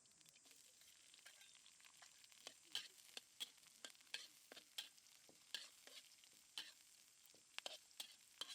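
Faint food-preparation sounds: irregular sharp clicks, roughly one or two a second, over a soft steady hiss.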